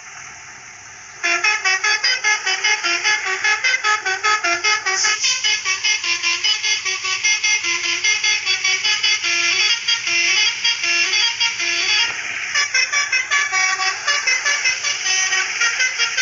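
Basuri telolet multi-tone bus horn playing a fast melody of short, rapidly changing notes, starting about a second in.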